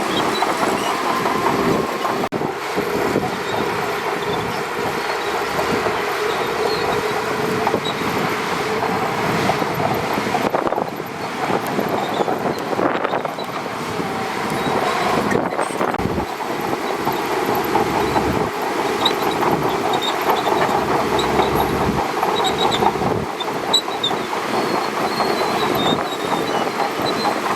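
Shantui DH17C2 crawler bulldozer working: its diesel engine running steadily while the steel tracks clank and squeal.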